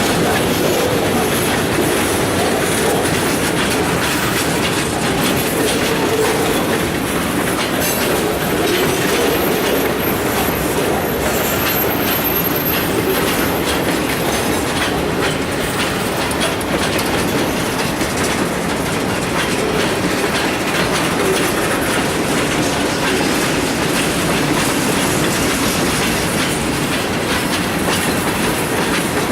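Freight train cars rolling past on steel wheels, a steady clatter over the rail joints.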